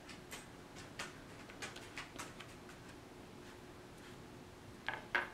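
A small paintbrush dabbing paint into the crinkled newspaper of a craft figure: faint scattered ticks and taps, with two sharper clicks just before the end.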